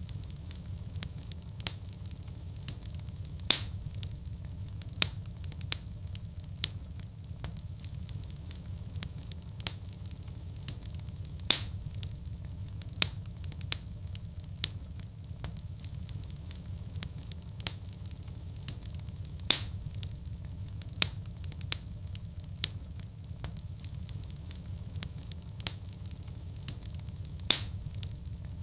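Fireplace fire crackling, with scattered sharp pops over a steady low rumble. A few louder pops come about every eight seconds.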